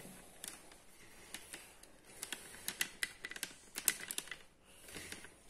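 Faint, irregular clicks and taps, several a second at times, over light rustling.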